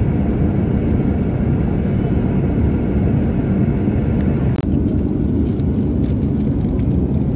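Airliner cabin noise in flight: a steady, deep rumble of engine and airflow. A few faint clicks come in the second half.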